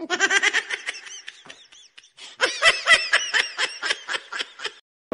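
People laughing hard in rapid short bursts, in two bouts with a brief pause between them, the second one louder.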